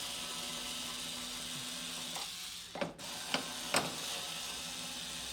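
Small electric screwdriver running steadily for about two seconds, then three light clicks as the back cover of a flat-screen TV is worked loose.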